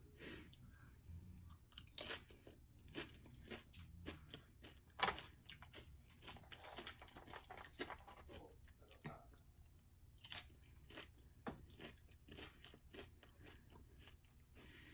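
A person chewing and crunching Doritos tortilla chips loaded as nachos, with many irregular sharp crunches.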